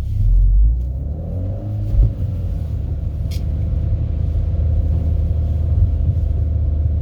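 Seat Leon Cupra R's 2.0 TFSI turbo four-cylinder heard from inside the cabin while driving gently, a steady low rumble with an engine tone that rises over the first two seconds and then holds steady. The engine runs cleanly, its cylinder-4 misfire repaired. A single thump about two seconds in.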